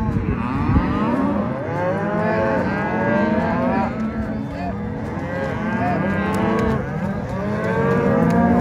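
A herd of cattle mooing, many overlapping calls of different pitches going on continuously.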